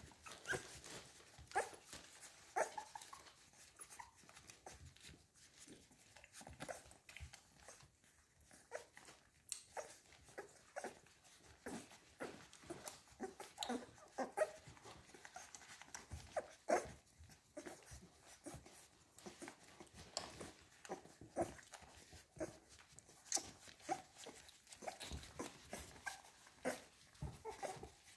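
American Staffordshire Terrier puppies squeaking and whimpering in short, scattered cries as they jostle for their mother's teats while nursing, amid many small clicking and smacking sounds.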